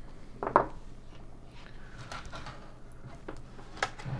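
Handling sounds as a metal power-supply case and tools are worked on a wooden bench: a sharp knock about half a second in, then a few faint clicks and light rattles near the end.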